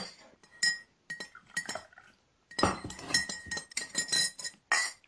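A spoon clinking against a glass teacup: a run of quick, irregular clinks, each with a short ring, coming thickest through the middle.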